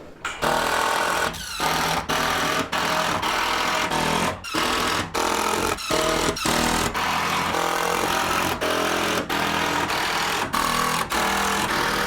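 A power screw driver running in a quick series of short bursts, each a second or less, with brief gaps between them, as screws are driven through metal roofing panels.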